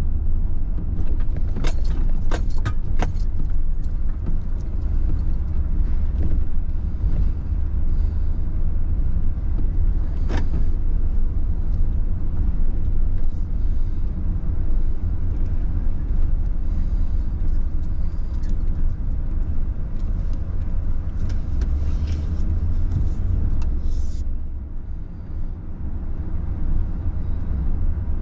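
Steady low rumble of a car driving, with a few sharp rattling clicks about two to three seconds in and again about ten seconds in.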